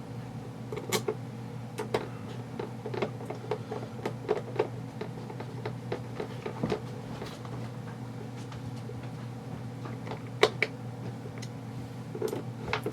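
Small scattered clicks and taps of metal parts and screws being handled while an airsoft rifle's gearbox is screwed back together, the sharpest knock about ten and a half seconds in, over a steady low hum.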